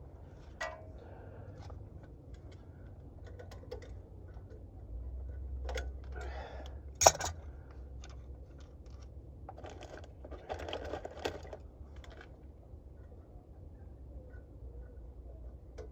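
Hands fitting a plastic wiring clip back onto a truck's wheel hub wiring: scattered small clicks and rustling, with one sharp snap about seven seconds in as the loudest sound.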